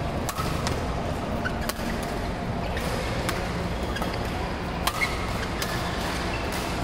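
Badminton racquets striking a shuttlecock during a doubles rally: a string of sharp clicks at uneven intervals, with brief squeaks of court shoes, over the steady din of play on the other courts of a busy hall.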